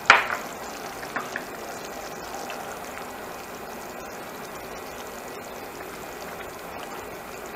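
Thick barbecue sauce simmering in a nonstick frying pan over a low gas flame, a steady bubbling hiss while a spatula stirs it. A sharp clack at the very start, then two lighter knocks about a second in.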